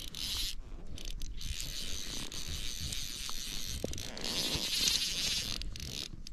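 Fly reel ratcheting in a running buzz as line moves through it under tension from a hooked fish, with short breaks and loudest about four to five and a half seconds in. A low rumble sits underneath.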